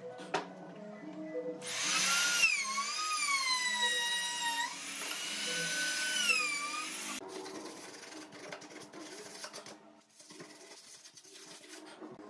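Compact trim router spinning up and cutting along the edge of a pine board. Its high whine dips and recovers as the bit bites into the wood, then it stops after about five seconds.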